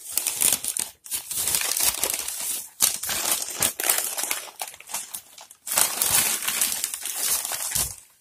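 Newspaper wrapping crinkling and rustling as hands pull it open, in several long bursts with brief pauses between.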